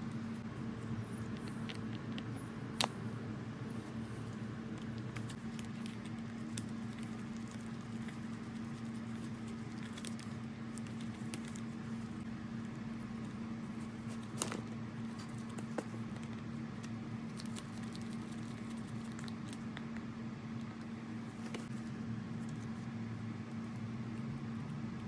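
Quiet handling of Atlas lathe parts by gloved hands as they are fitted together: light scraping and small ticks, with a few sharper metal clicks, one about three seconds in and another about halfway through. A steady low hum runs underneath.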